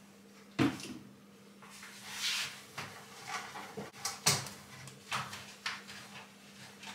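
Light knocks, clatters and rustling of items and containers being moved about on the shelves of an open fridge, a few separate handling sounds over a faint steady low hum.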